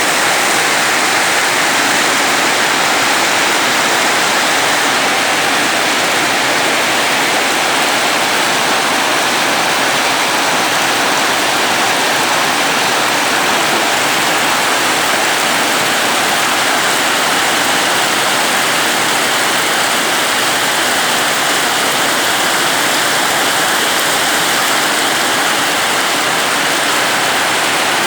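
Very heavy rain pouring down in a steady, dense hiss with no letup.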